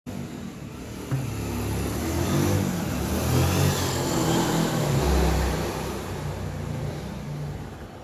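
A motor vehicle passing by: its engine grows louder over the first few seconds and then fades away.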